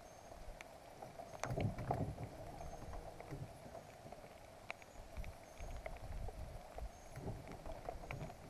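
Muffled bumps and scattered light taps picked up through a GoPro waterproof case wrapped in a sandwich bag, on a small fishing boat; the loudest bumps come about one and a half to two seconds in.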